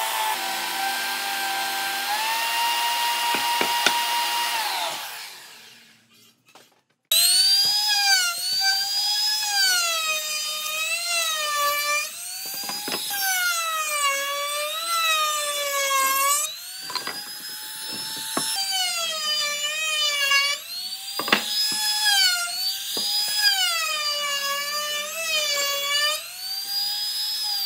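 Electric belt sander running with a steady motor hum that steps up in pitch at about two seconds, then winding down and stopping. After a brief silence a trim router starts and cuts wood, its high whine dipping in pitch and recovering again and again as the bit bites into the timber, and falling away as it spins down near the end.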